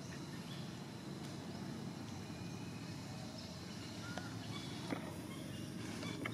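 Outdoor ambience: a steady low rumble, with a few faint clicks and a short chirp about four seconds in.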